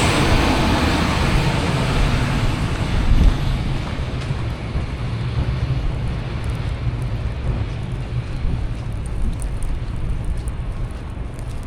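A heavy road vehicle passing and fading away in the first few seconds, leaving steady traffic noise and a low wind rumble on the microphone.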